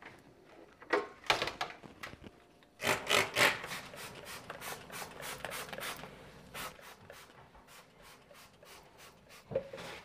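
Rubbing and scraping from cleaning at a window, with the blinds being taken down: a few louder scrapes in the first few seconds, then a run of quicker, lighter rubbing strokes.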